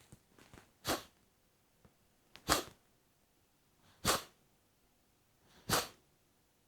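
Kapalbhati breathing: four sharp, forceful exhalations through the nose, about one every second and a half. Each is a short hiss of air driven out by a snap of the abdomen.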